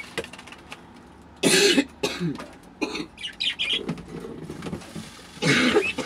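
A person coughing twice, each cough a short loud burst, about four seconds apart, with faint bird chirps between.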